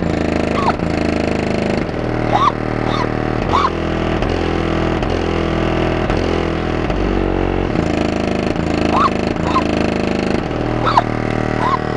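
Bass-heavy music played loud through six 15-inch FU Audio subwoofers in a 4th-order enclosure, driven by a DB Drive 3500 amplifier. Deep bass notes step from one to the next about once a second, with short rising high chirps over them every second or two.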